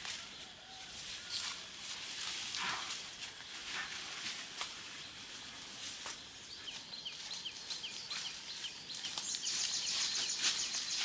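Outdoor rural ambience: scattered rustling and light knocks, with a bird chirping in a quick series of short calls past the middle, then a steady high hiss near the end.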